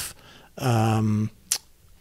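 A man's voice holding a drawn-out hesitation sound, an 'uhh' of under a second at a steady pitch, then a single short click.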